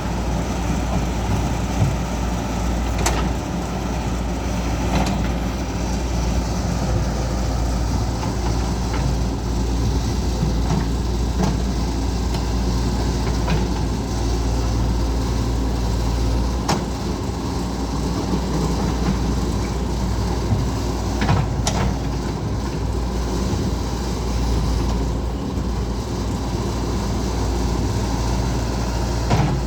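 Caterpillar excavator's diesel engine running steadily under work, with a few sharp knocks scattered through it.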